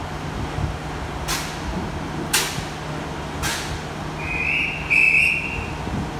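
A high-pitched whistle blown twice in quick succession, like a railway guard's dispatch whistle, over the steady hum of a train idling at the platform. Three short hisses come about a second apart before the whistle.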